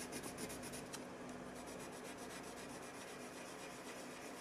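A white Prismacolor colored pencil scratching quickly back and forth on paper, blending white over a skin-tone layer. The strokes stop with a small tick about a second in, leaving faint room hum.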